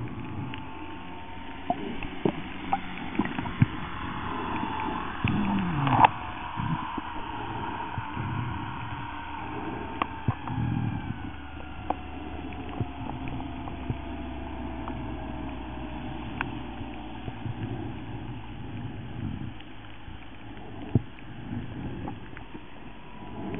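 Underwater sound from a camera held below the surface: muffled water movement with a low rumble, many scattered sharp clicks and knocks, the loudest about six seconds in, and a faint whine that slides slowly down in pitch through the middle.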